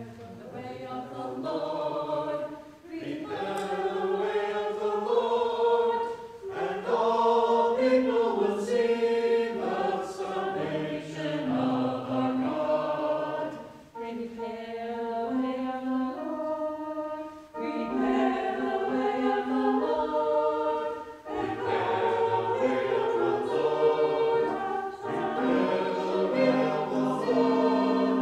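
Small mixed choir of men's and women's voices singing, phrase by phrase, with short breaks between the phrases.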